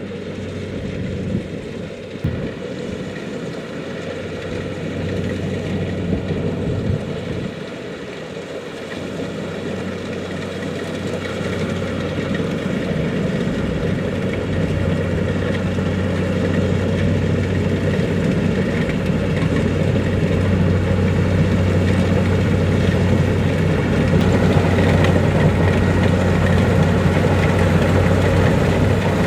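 Kubota DC-70 Plus combine harvester's diesel engine running steadily with a constant low hum, growing gradually louder from about a quarter of the way in.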